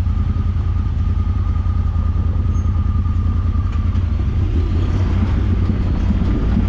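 Side-by-side UTV engine running at low, steady revs, a continuous low rumble.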